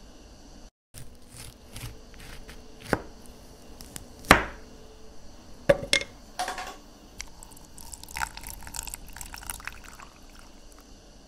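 Pineapple chunks and ice cubes dropping into a plastic blender jar with a few sharp knocks, the loudest about four seconds in. Then fine crackling and trickling as liquid is poured over the ice.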